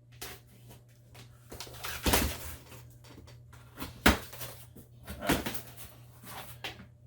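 Cardboard shipping box being handled and its flaps pulled open: irregular scraping and rustling with a few knocks, the sharpest about four seconds in.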